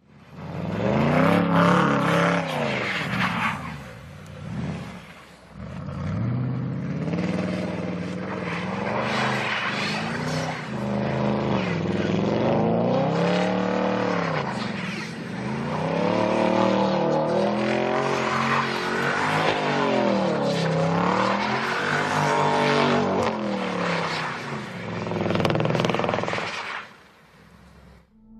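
Audi S5 engine revving up and down over and over under wheelspin as the car drifts in circles on snow. The revs rise and fall every second or two, easing off briefly about four to six seconds in and again near the end.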